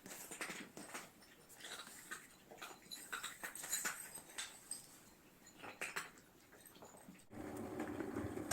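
Cats eating, with irregular small crunching clicks. Near the end this gives way abruptly to a steady low hum.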